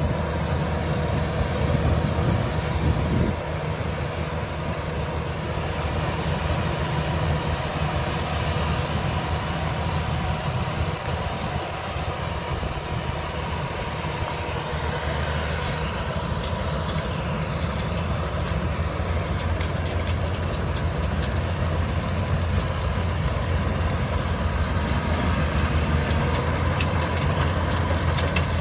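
Yanmar AW82V rice combine harvester's diesel engine running steadily.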